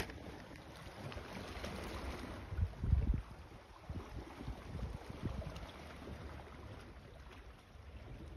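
Wind buffeting the phone's microphone in uneven low gusts, the strongest about three seconds in, over a steady outdoor hiss.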